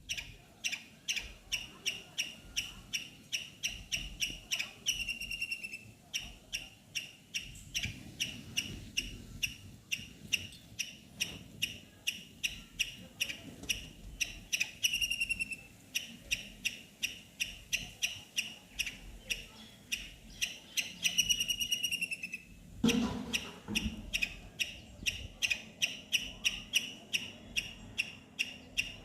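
A squirrel giving its squeaking chirp call over and over, a rapid run of short, sharp, high chips at about three or four a second. Three times the run breaks into a longer call that slides down in pitch. A low thump sounds once, about two-thirds of the way through.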